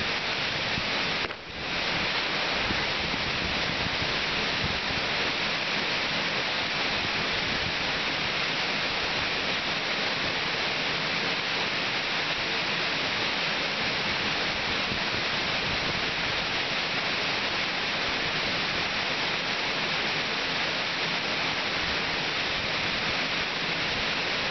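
Waterfall pouring: a steady rush of falling water, broken by a brief drop in level about a second in.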